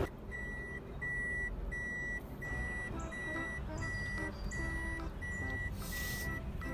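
A car's electronic warning chime, one high beep repeating evenly about every 0.7 seconds, over quiet music, with a short hiss about six seconds in.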